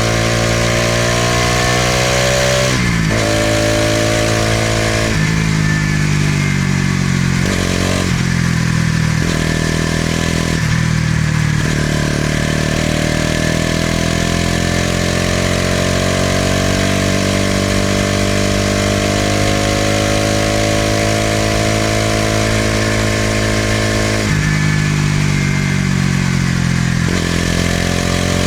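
Bajaj Pulsar NS200's single-cylinder four-stroke engine and exhaust under way, its pitch rising and falling with the throttle. The pitch drops sharply several times in the first twelve seconds, climbs slowly for about twelve seconds, then dips twice near the end.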